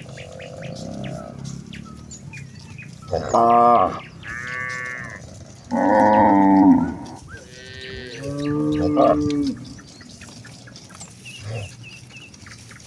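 A herd of cattle mooing, about five long calls one after another, some higher-pitched and some deeper, with the loudest two about three and six seconds in.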